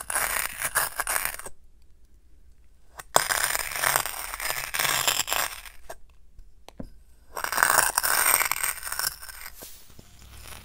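A glass jar pressed down into packed blue sand, crunching and crumbling it in three bouts of a second or two each, full of small grainy crackles.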